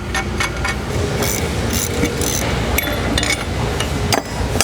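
Irregular metal clanks and clinks, about a dozen sharp knocks, as the swivel unit is worked loose and lifted out of its holding fixture, over a steady low rumble.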